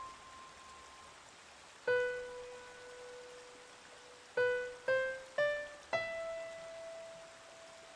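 Background piano music: a slow melody of single notes, each struck and left to ring out. One low note comes about two seconds in, then a run of four notes climbing in pitch about half a second apart, the last one held and fading.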